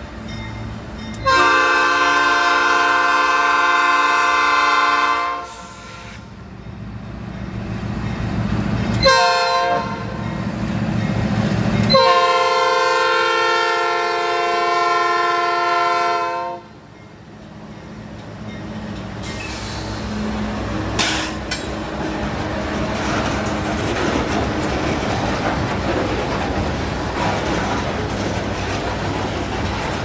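Norfolk Southern AC44C6M locomotive's multi-note air horn sounding for a grade crossing: a long blast, a short blast, then another long blast. The locomotive then passes close by, followed by freight cars rolling past with a steady rumble and clickety-clack of wheels on the rails.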